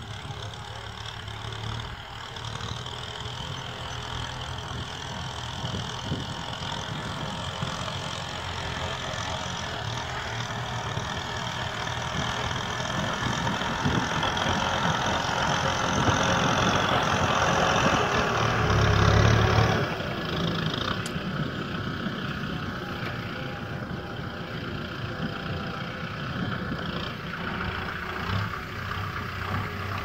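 Farm tractor's diesel engine running under load while ploughing. It grows louder as the tractor draws near, is loudest about two-thirds of the way through, then drops suddenly and runs on steadily at a lower level.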